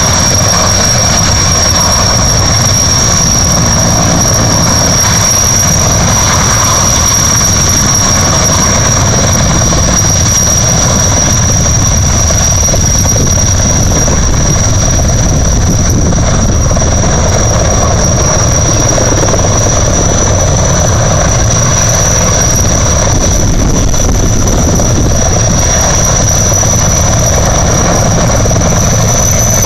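Erickson S-64 Air-Crane (Skycrane) helicopter hovering low, its rotors and twin turbines running steadily with a constant high whine over the rotor noise, while it refills with fire retardant through its snorkel.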